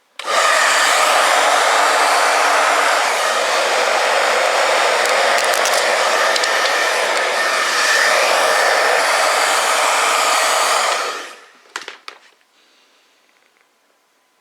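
Hot-air blower running steadily to warm the adhesive under a newly fitted phone front glass; it switches on just after the start and shuts off about eleven seconds in.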